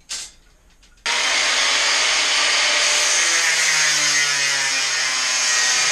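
Power tool cutting steel stock to length, starting about a second in at full level and running steadily, its motor tone sagging slightly under load. A short knock comes right at the start.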